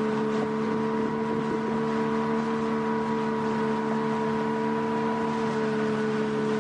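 Small outboard motor pushing a dinghy, running at a steady speed with an even hum, over the rush of water and wind past the boat.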